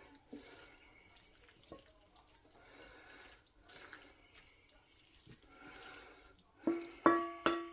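A few light clinks and scrapes of a utensil as cooked stir-fry is served from the wok into a dish, over a faint hiss. Near the end, music with plucked, repeated notes comes in.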